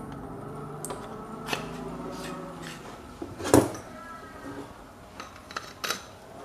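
A few sharp knocks and clicks of parts being handled, the loudest about three and a half seconds in. Under them is a low steady hum that dies away a little before three seconds.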